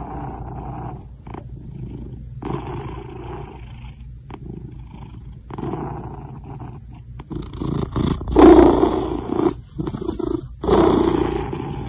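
Domestic cat purring close to the microphone, in rough swells that rise and fall with each breath, every two to three seconds. It gets louder about eight seconds in.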